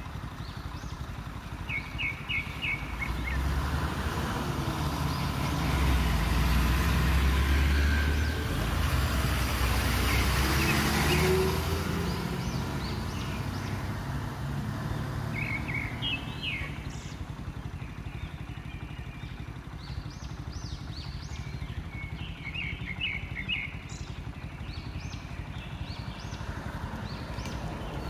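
Engines of a large bus and a lorry rumbling as they idle and pull slowly past, loudest a few seconds in, with a brief rise and fall in engine pitch. Small birds chirp in short trills several times.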